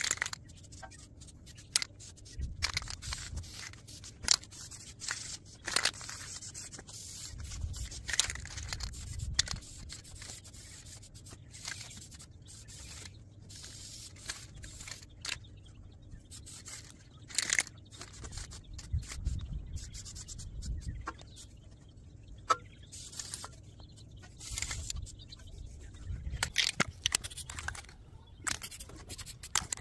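Short hissing bursts from an aerosol spray-paint can, among scattered clicks and scrapes, with wind rumbling on the microphone now and then.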